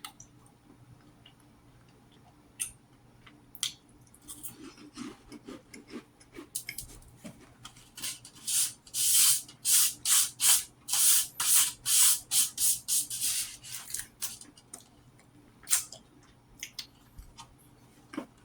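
Close-miked chewing of a crunchy cracker: a few scattered small crunches and clicks, then a run of loud crisp crunches about two a second through the middle, dying away near the end.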